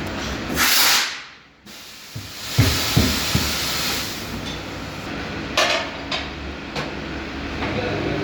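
Tyre-fitting work on a motorcycle wheel: a loud burst of air hiss, then sharp metal knocks and strikes over a steady hiss.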